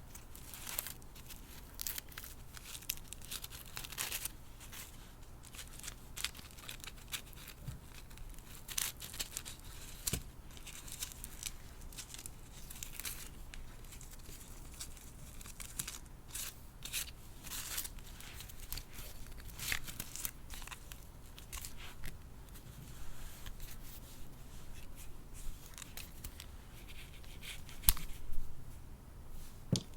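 Close handling of doll packaging: crinkling and rustling of plastic and paper with scattered light clicks, and a few sharper clicks about two seconds before the end.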